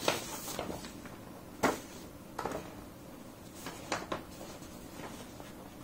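Faint handling noise: a few soft clicks and rustles over quiet room tone, the sharpest click about one and a half seconds in.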